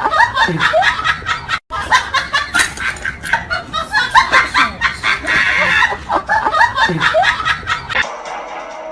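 People laughing in quick bursts of chuckling, cut off briefly about a second and a half in. Music takes over near the end.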